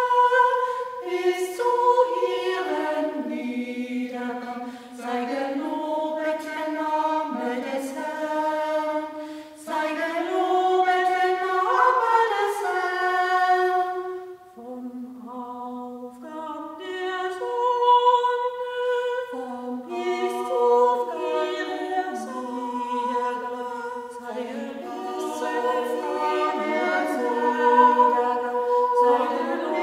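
Four women's voices singing a cappella in harmony, holding long notes, with a brief breath-pause about halfway through.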